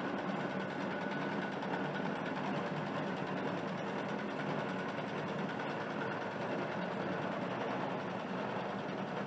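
Steady street noise with an engine running, from a street-procession film clip played back over loudspeakers in a room.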